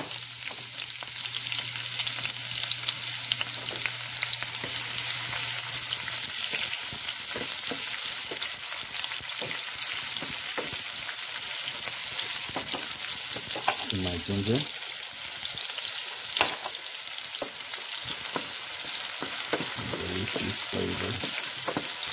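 Sliced onion and bell pepper strips sizzling in hot coconut oil in a frying pan: a steady crackling hiss, with scattered clicks of a wooden spoon stirring the vegetables.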